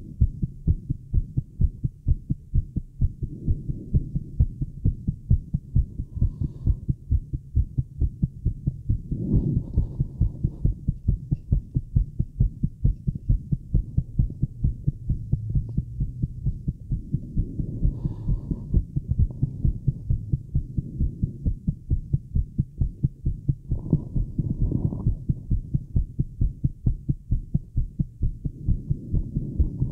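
Rapid, regular human heartbeat heard through a Littmann stethoscope chest piece with a microphone attached: a quick lub-dub thumping at about 130 beats a minute, a racing heart. A few brief swells of louder rushing noise rise over the beats.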